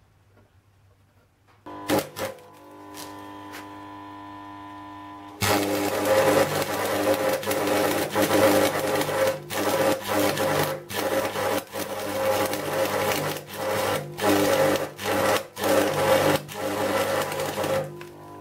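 Electric arc welder: a steady hum with a few clicks about two seconds in, then the arc strikes about five seconds in and crackles and sizzles loudly, broken by repeated short breaks as the weld is laid on in short runs.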